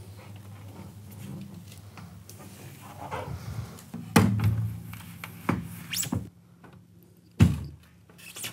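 Aluminum sliding glass door panel knocking against the door mainframe as it is set in head-first and lowered onto the bottom track: several sharp thunks, the loudest about four seconds in and again about seven seconds in.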